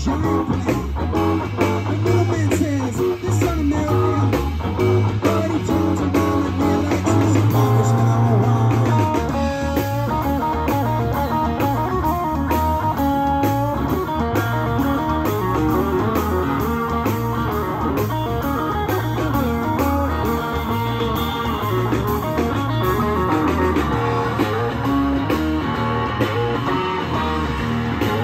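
Live rock band playing an instrumental passage without vocals: electric guitars over bass, drums and keyboard.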